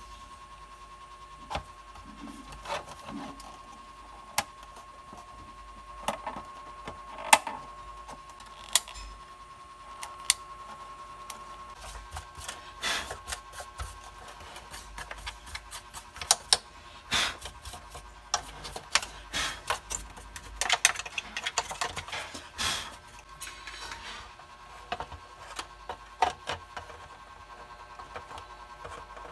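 Irregular clicks, taps and light knocks of hands working wires and a circuit board inside a plastic emergency-light housing, busiest in the middle stretch, over a faint steady tone.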